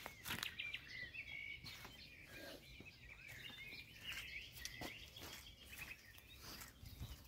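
Faint birdsong: small songbirds chirping and twittering almost without pause, with a few scattered soft clicks.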